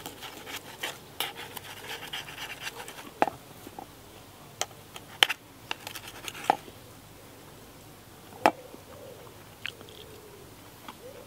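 Knife and fork scraping and cutting across a frying pan, then several sharp clinks of the cutlery striking the pan.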